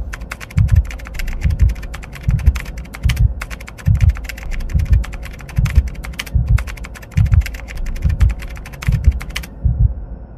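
Rapid computer-keyboard typing clicks, a typing sound effect for text being typed out on screen, cutting off suddenly near the end. Under it runs a low, heartbeat-like throb about twice a second.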